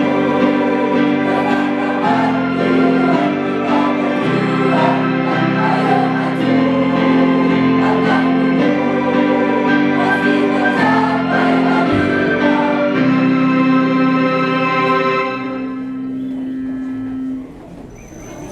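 School choir singing in unison and harmony with instrumental accompaniment, sustained chords, ending on a held final chord that thins out about 15 seconds in and stops near the end.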